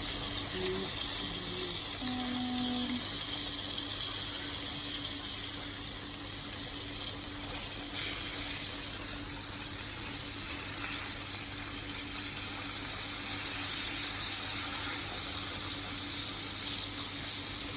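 Flour-coated fish pieces sizzling steadily in hot frying oil.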